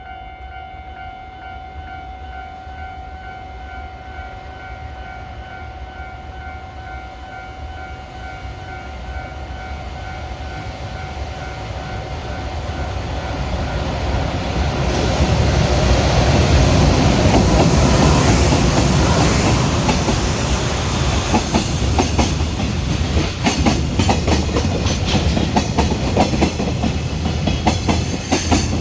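A level-crossing warning bell rings with a steady pulsing tone. Then a JR Freight EH500 electric locomotive and its container wagons pass close by, their noise building from about halfway through and drowning the bell. The wagon wheels clatter rapidly over the rail joints.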